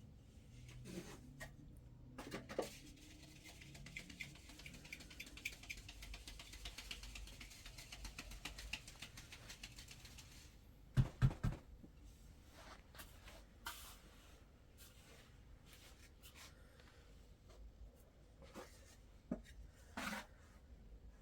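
Quiet household handling noises: scattered taps and scrapes, several seconds of fine rapid ticking, and a cluster of heavier knocks about halfway through.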